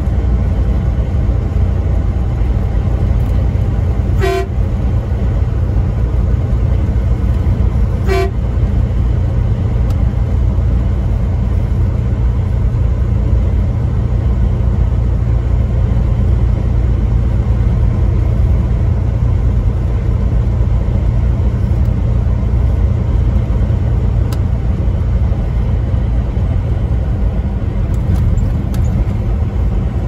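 Steady low rumble of a truck's engine and road noise at highway speed, heard from inside the cab, with two short horn toots about four seconds apart.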